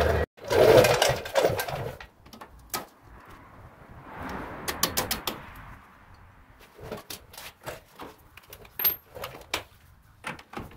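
Hand tools working on the axle nut and its cotter pin at a car's rear wheel hub. A louder clatter comes in the first two seconds, then scattered light metallic clicks and clinks as the cotter pin is pulled and the 32 mm nut is loosened.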